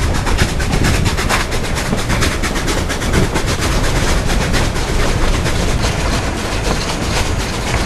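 Cumbres & Toltec narrow-gauge steam train running, heard from an open coach window: a steady low rumble with fast, dense clatter from the wheels and running gear.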